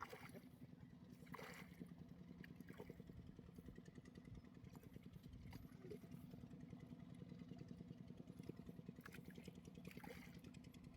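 Faint small engine running steadily with a low, fast, even rattle, heard at a distance.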